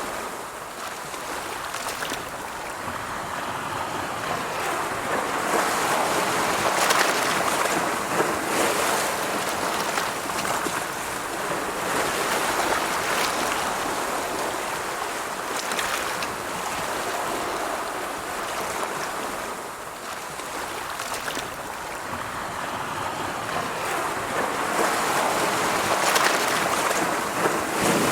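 Ocean surf: waves breaking and washing in a steady hiss that swells and ebbs every several seconds.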